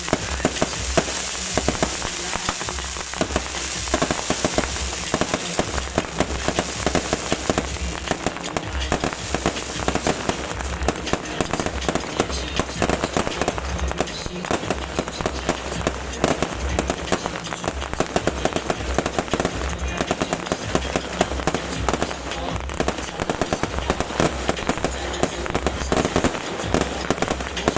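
A dense, unbroken volley of crackling pops and whooshes from a massed rack of beehive fireworks, small bottle rockets fired off by the hundreds at once, going on without a break.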